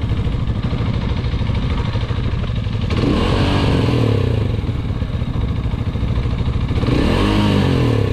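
Small motorcycle engine idling at a standstill, revved twice by hand on the throttle, about three and seven seconds in, each rev rising and falling back to idle over about a second and a half. It is being revved to listen for a knock the rider suspected while riding.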